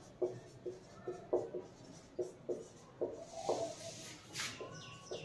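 Felt-tip marker writing on a whiteboard: a run of short squeaky strokes, about two a second, with a longer scratchy stroke about four seconds in.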